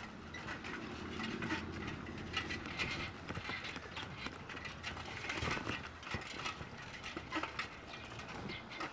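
Bicycle rolling over pavement, its parts rattling and clicking irregularly over a steady rumble of tyres and wind.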